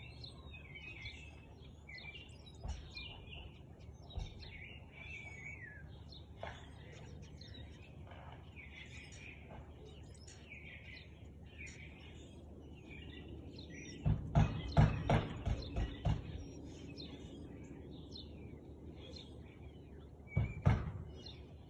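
Small birds chirping over a steady low rumble. About fourteen seconds in comes a quick run of loud knocks or thumps lasting about two seconds, and two more knocks near the end.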